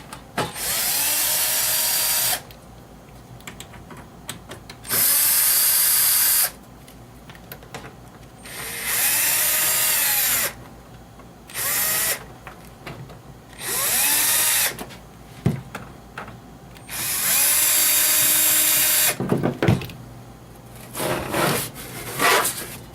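Cordless drill or power screwdriver running in six short bursts of one to two seconds, its motor whine rising and falling with each run, typical of backing out chassis screws. A few short rattling knocks near the end.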